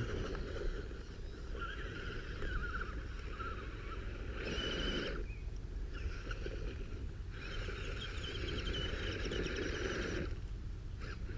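RC crawler with a weed-cutting blade, its electric motor and drivetrain whirring in several bursts of a few seconds each as it is driven on and off the throttle, over a steady low rumble.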